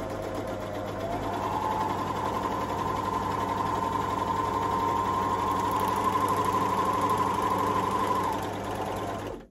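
Juki MO-2500 overlocker (serger) running a test seam, stitching and trimming the edge of a fabric scrap. Its hum rises in pitch as it speeds up about a second in, holds steady, then stops suddenly just before the end.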